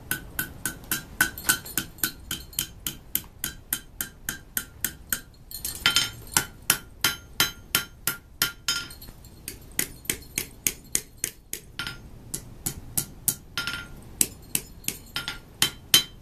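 Blacksmith's hand hammer striking hot steel on an anvil in a fast, even rhythm, about three or four blows a second, while forming a loop handle on the bar. The anvil rings under the blows for the first few seconds, and the hammering pauses briefly about five seconds in.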